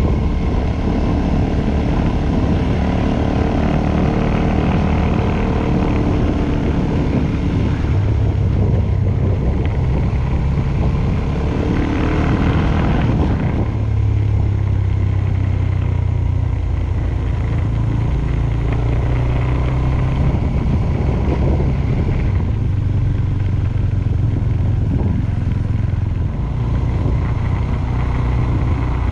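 Suzuki Thunder 250 motorcycle engine running under way, heard from the rider's camera with wind and road noise; the engine note changes about 13 seconds in.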